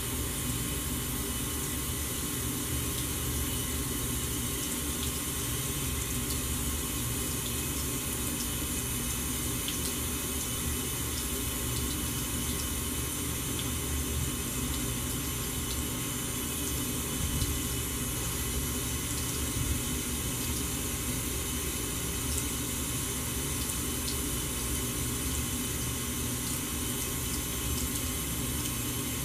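Bathroom sink faucet left running in a thin stream, the water splashing steadily into the basin near the drain.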